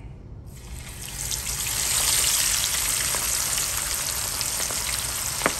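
Turkey wings frying in hot oil at 350 degrees: the sizzle comes in about half a second in as they go into the oil and builds within a second or two to a steady crackling hiss. A single sharp click near the end.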